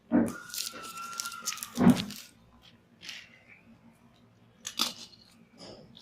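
Phone-box packaging torn open by hand: a rasping tear for about two seconds that ends in a thump, then a couple of brief rustles and a knock.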